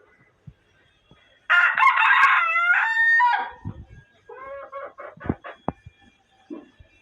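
Rooster crowing once, a loud call of about two seconds starting about a second and a half in, followed by a few short clucks.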